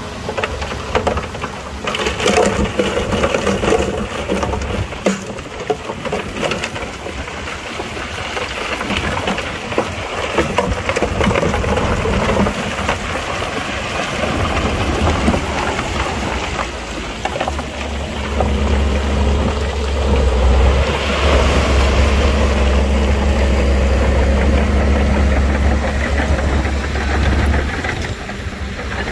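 Heavy diesel earthmoving machinery working loose rock: a continuous rumble and clatter of rock with engines running under load. The low engine drone comes up strongly a little past halfway and holds until just before the end.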